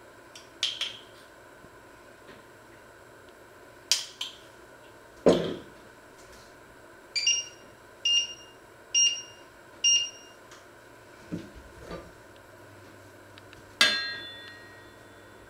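Kitchen handling sounds: scattered knocks and clicks, the loudest about five seconds in. In the middle come four short electronic beeps about a second apart, as an electric hob's touch controls are pressed. Near the end a utensil strikes the pan with a short ring.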